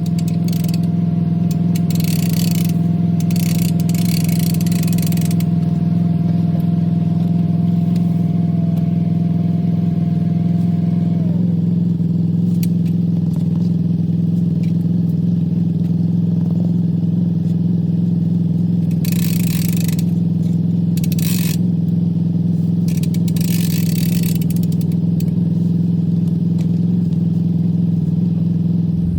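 ATV engine running at a steady speed while it drags a log on a hitch, with a thin whine that fades out about a third of the way in. Brief hissing bursts come a few times.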